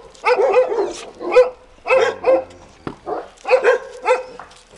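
A dog barking over and over, about two or three barks a second.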